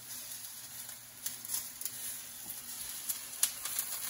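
Eggplant slices frying in olive oil in a pan: a steady sizzle with scattered pops and crackles.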